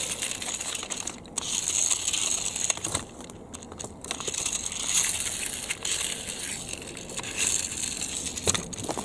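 Handling noise: a plastic toy tractor chassis with rubber-tyred wheels being turned over in the hands, with rustling and crinkling and a few small plastic clicks, rising and falling in patches.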